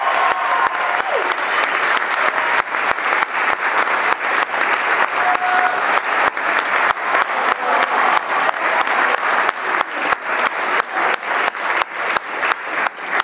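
Audience and fellow singers applauding: dense clapping that thins in the second half into more distinct, evenly repeated claps.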